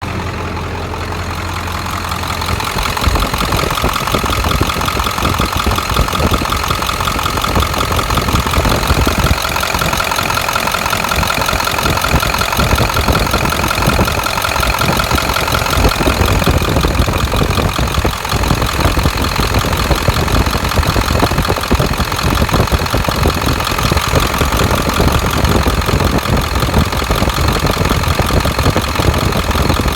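A 7.3-litre engine idling with a fast, even ticking noise running through it.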